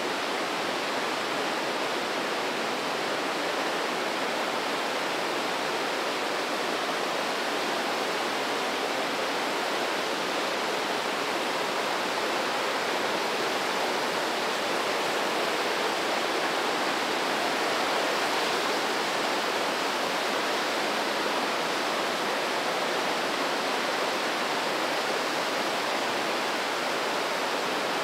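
Mountain river rushing through a rock gorge: a steady, unbroken rush of fast water.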